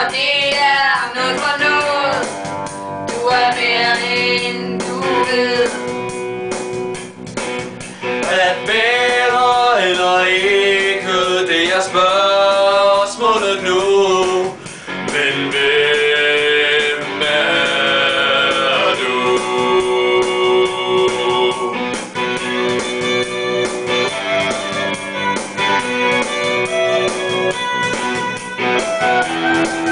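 A song: singing over guitar accompaniment, the vocal line moving through the first half and giving way to held, sustained notes about halfway through.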